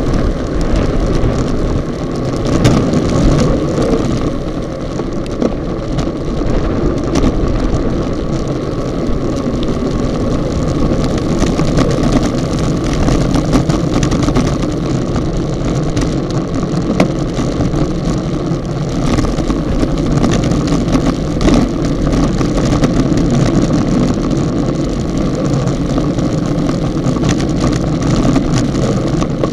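Steady wind rushing over an action camera's microphone mounted on a racing bicycle riding in a bunch at about 35 to 50 km/h, mixed with tyre and road noise. Occasional sharp clicks sound through it.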